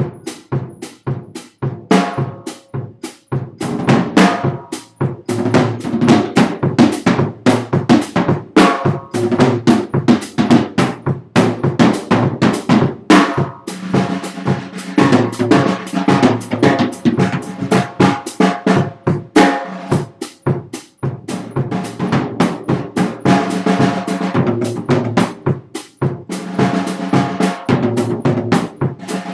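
Drum kit being played, snare and bass drum in busy patterns with rolls and fills. The playing starts suddenly out of silence.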